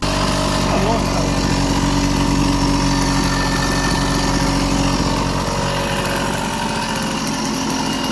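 Sachs 50cc automatic two-stroke moped engine running steadily on its test run, just after its Bing carburettor was cleaned and reassembled.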